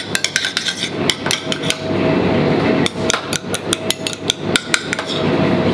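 Kitchen work: quick, irregular knocks and clinks of utensils on hard surfaces in two runs, the second starting about three seconds in, over a steady hum.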